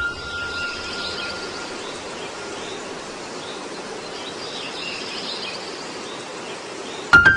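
Outdoor ambience: a steady background hiss with small birds chirping in scattered bursts. Piano music comes in just before the end.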